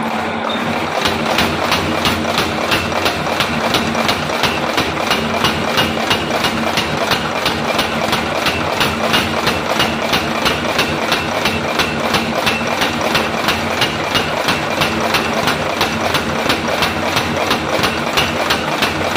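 Power hammer pounding red-hot railway-rail steel on its anvil, in a rapid, even rhythm of about four blows a second that starts about a second in. Under the blows is the steady hum of the hammer's running motor.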